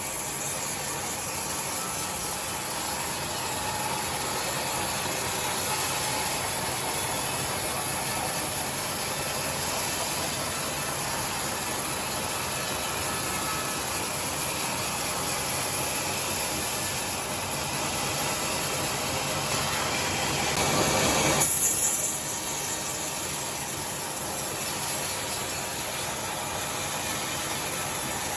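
Sawmill saw and its machinery running steadily with an even hiss and low hum, briefly louder for about a second and a half around twenty seconds in.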